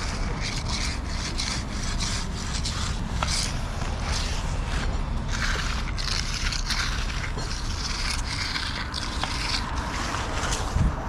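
Hand edger scraping along the edge of freshly poured concrete in many short back-and-forth strokes, over a steady low rumble, with a thump near the end.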